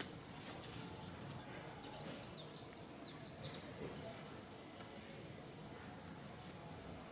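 A few short, high-pitched chirps over a steady outdoor background: one about two seconds in with quick falling squeaks after it, and another about five seconds in.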